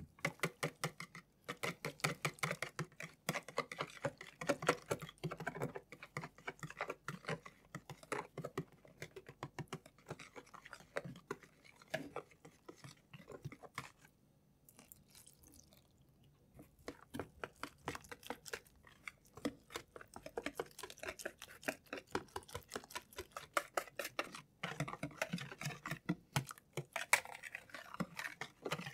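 Wire balloon whisk beating thin-pancake batter in a plastic bowl: fast, steady clicking and scraping of the wires against the bowl, with a short pause about halfway through. The flour is being worked into beaten eggs, and the batter turns from a thick, floury mix to a smooth, runny one.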